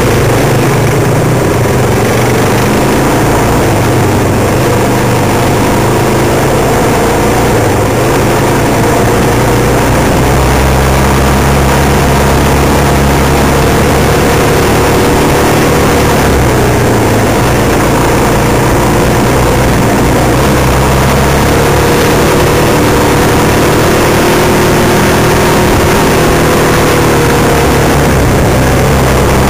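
Off-road motorcycle engine running under way on a dirt trail, its pitch rising and falling gently with the throttle, over a constant rushing noise.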